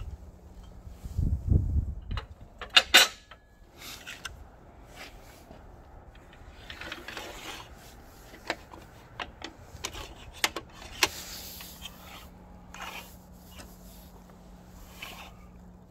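Metal and plastic parts of a Bosch GTS 635-216 table saw being handled. There are scattered clicks, knocks and short scrapes, with the sharpest cluster of clicks about three seconds in. A low rumble comes about a second in.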